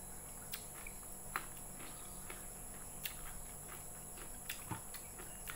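Close-up eating sounds: soft, scattered clicks and smacks from closed-mouth chewing and from fingers picking through fried rice vermicelli topped with crispy dried anchovies, over a faint steady hum.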